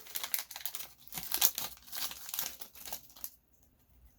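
Foil wrapper of a Pokémon card booster pack crinkling as it is handled and torn open, stopping about three seconds in.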